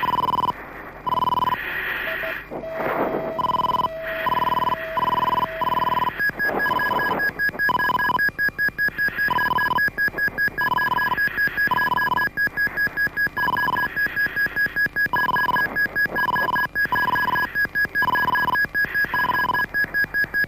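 Mirage 2000 cockpit warning tones during a wheels-up landing: a repeated beep about once a second, joined about six seconds in by a second, higher tone that pulses rapidly.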